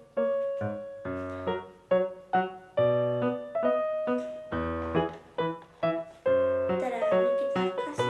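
Background music: a light piano melody of struck notes, each fading after it is played.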